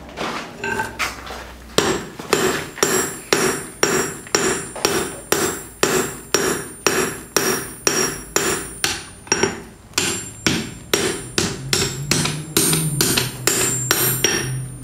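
Blacksmith's light, long-handled hand hammer striking red-hot steel on an anvil in a steady rhythm, about three blows a second, each with a short metallic ring. The blows are lighter for the first couple of seconds.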